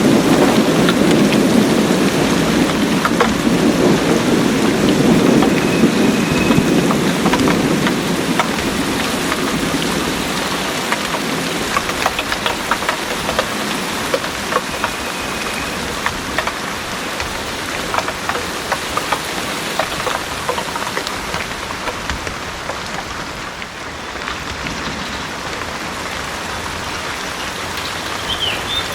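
Heavy rain pouring steadily, with drops tapping and pattering on surfaces. A low rumble of thunder in the first several seconds dies away.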